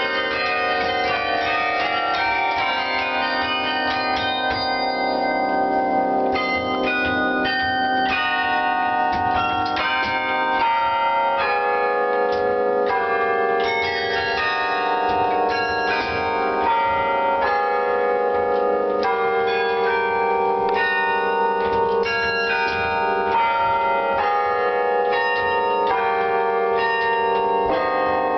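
Carillon bells played by hand from the baton keyboard, heard from inside the playing cabin: a continuous run of struck notes and chords, each bell ringing on under the next.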